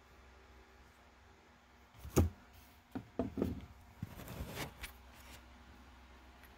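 Aluminum castings being handled on a shelf: one sharp knock about two seconds in, then several lighter knocks and a brief scraping rustle as pieces are set down and picked up.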